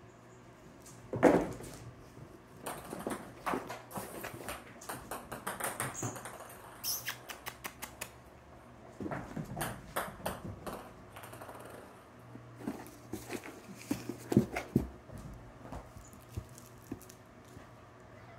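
Small toy balls tossed and skittering across a hardwood floor while kittens scamper and pounce on them: a string of light clicks and knocks, with a loud thump about a second in and a quick run of ticks a little before halfway.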